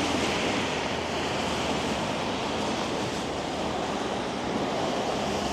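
Steady rush of city street noise, passing traffic mixed with wind, with no single event standing out.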